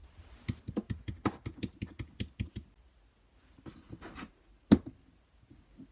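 A quick run of light taps and clicks, about six a second for two seconds, then a short scraping rustle and one sharp knock, the loudest sound, near the end.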